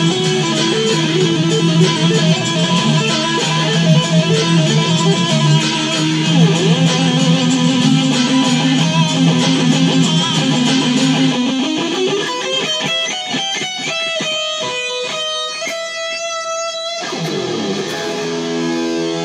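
Electric guitar solo in a rock/metal style: fast dense playing, then a rising slide about eleven seconds in, then rapid choppy repeated high notes that cut off suddenly near the end, followed by a downward slide into held notes.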